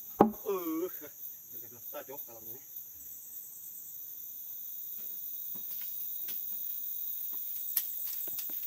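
Steady high-pitched buzzing of forest insects, with a sharp wooden knock just after the start as the ulin beam is shifted, followed by a brief vocal sound. Another short vocal sound comes about two seconds in, and a few light taps near the end.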